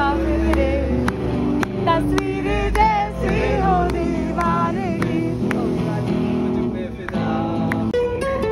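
A man singing with vibrato while strumming an acoustic guitar, with a low rumble of street traffic under the first few seconds. Near the end the sound cuts to another acoustic guitar being strummed.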